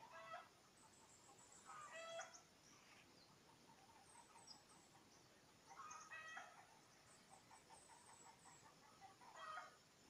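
Faint chicken calls: four short calls, each about half a second, a few seconds apart, with thin high chirps in between.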